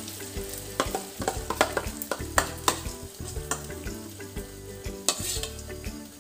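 Thick pumpkin-and-lentil batter frying in a little oil in a non-stick pan, with a spoon scraping and tapping in short, sharp strokes as the batter is spread and the last of it is scraped out of a steel bowl into the pan.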